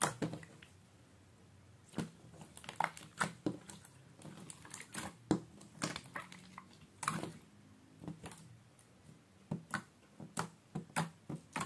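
Soft, glossy tofu slime being squeezed, kneaded and poked by hand, giving irregular sticky clicks and pops, sometimes several in quick succession.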